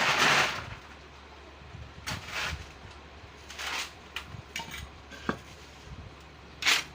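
Metal tools and engine parts clinking and scraping as they are handled, in a series of short irregular clatters and sharp clicks, with a louder clatter at the start.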